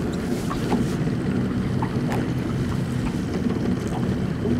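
Small Yamaha outboard motor idling steadily, a low even hum, with wind on the microphone.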